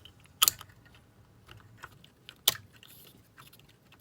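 Two sharp metal clicks, about half a second in and again about two seconds later, with faint ticks of small parts being handled, as a greased wrist pin is fitted through a two-stroke piston onto the connecting rod.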